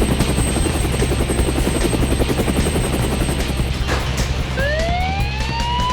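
Helicopter rotor chopping rapidly and steadily. About four and a half seconds in, a siren starts, its wail rising in pitch.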